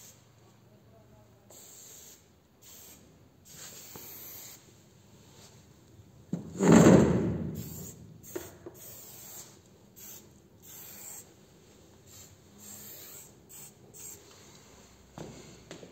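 Drawing strokes scratching across paper: a series of short rubbing strokes, some quick and some drawn out, as letters are sketched by hand. About six seconds in, a single much louder low bump fades out over a second or so.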